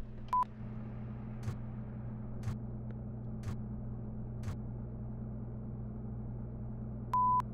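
A steady low hum, with a soft tick once a second four times, a brief high beep just after the start and a longer beep of the same pitch near the end.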